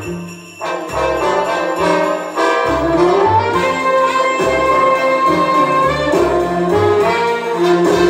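Orchestral music with brass and jingle bells, played in mono through a single 8-inch Electro-Voice SP8B coaxial driver in a Gough speaker cabinet, driven by a 1957 Realistic vacuum-tube amplifier. The music drops away briefly just after the start, then comes back in full.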